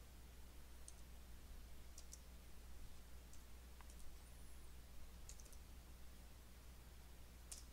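Faint computer keyboard keystrokes, about ten scattered single and paired clicks as a short command is typed, over a steady low hum.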